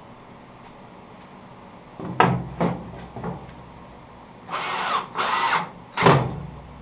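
Hand work at the bench: a few knocks, then two rasping half-second noises, then one sharp loud impact.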